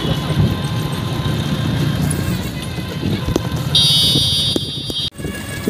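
Street traffic noise heard from a moving cycle rickshaw: a steady low rumble of passing motorcycles and motor vehicles. Near the end a shrill, steady tone sounds for about a second and a half, then everything cuts off abruptly.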